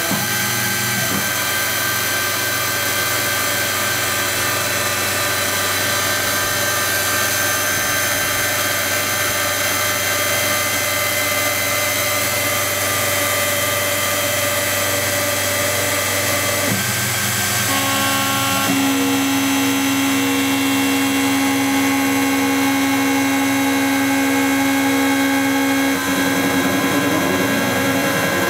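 Pro Light benchtop CNC mill cutting a block of machinable wax: a steady machine whine from the spindle and axis drives, made of several tones that shift in pitch a few times as the cut moves along. Near the end come rising and falling tones as the table travels.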